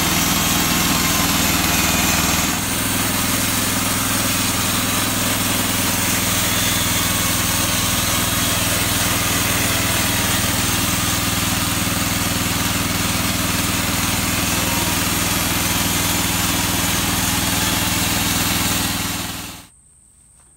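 Portable band sawmill's gasoline engine running steadily, its tone shifting slightly about two and a half seconds in. The sound cuts off abruptly near the end.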